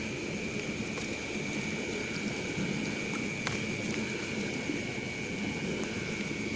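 Drizzle falling steadily, with one thin high tone held unchanged throughout and a couple of faint clicks.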